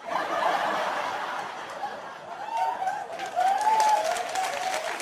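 Audience laughter: a crowd laughing together, starting suddenly, with a few laughs standing out over the rest. Scattered claps join in near the end.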